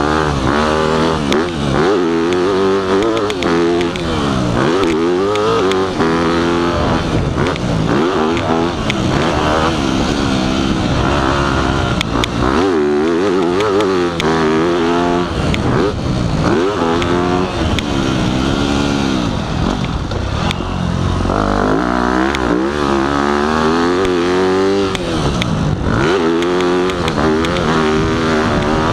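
Yamaha dirt bike engine under hard riding, its pitch climbing and dropping back over and over as it accelerates and eases off around the track.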